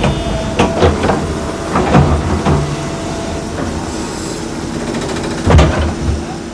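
Construction machinery running with a steady hum, with several sharp knocks through it; the loudest knock comes about five and a half seconds in.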